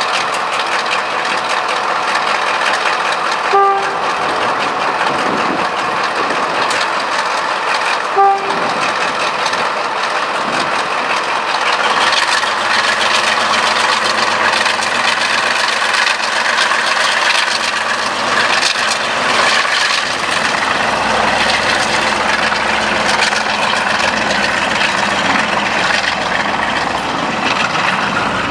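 BR Class 35 'Hymek' diesel-hydraulic locomotive with its Maybach V16 engine running steadily as it moves, getting a little louder about twelve seconds in. Two short toots of a locomotive horn come in the first third, about four and a half seconds apart.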